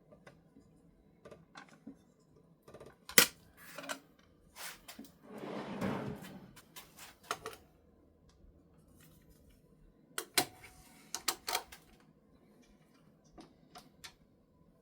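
Scattered sharp clicks and knocks of a skew chisel and its sharpening jig being handled at a Tormek T-8 sharpener, with a short scraping sound a little past the middle and a cluster of clicks near the end.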